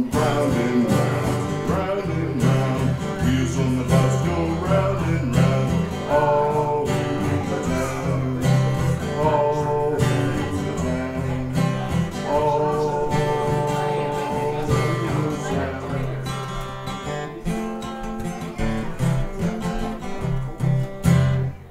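Live band music built on strummed acoustic guitar, with held melody notes rising over it in a few places.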